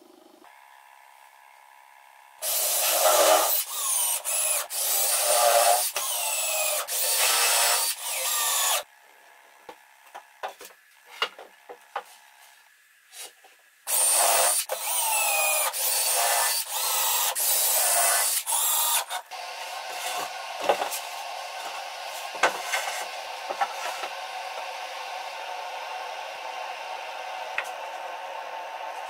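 Cordless drill-driver driving screws into pine boards in two runs of short bursts, its motor whine rising and falling as each screw bites. Between and after the runs come scattered knocks and clicks.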